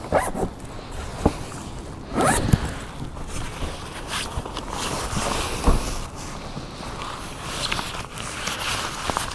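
A zipper being pulled, amid irregular rustling and sharp clicks of things being handled.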